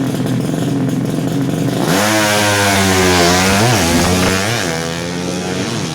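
Drag-racing motorcycle engine running at high revs. It hums steadily, then about two seconds in turns suddenly loud and stays high, its pitch dipping briefly a few times as it shifts up through the gears.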